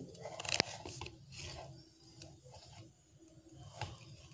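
Hands adjusting the extendable headband sliders of over-ear Bluetooth headphones: faint rubbing and handling noise with a few light clicks.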